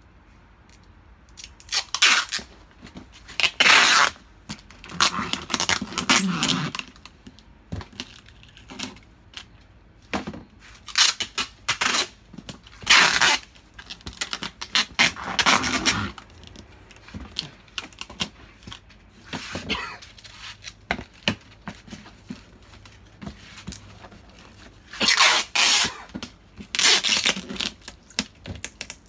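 Clear packing tape pulled off its roll in a series of loud rips, some a second or more long, and pressed onto a cardboard box, with the cardboard rustling and being handled between the rips.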